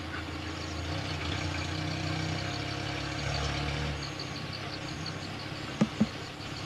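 Low steady engine-like rumble that drops away about four seconds in, with a faint regular high ticking and two sharp knocks close together near the end.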